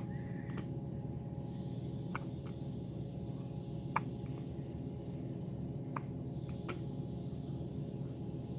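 Hiccups: about half a dozen short, sharp ones at uneven intervals of one to two seconds, the loudest about four seconds in, over a steady low hum.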